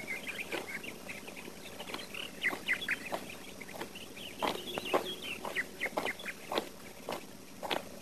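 Birds chirping, quick high calls in the first few seconds, then footsteps on dry ground and leaves, a string of short irregular steps from about halfway.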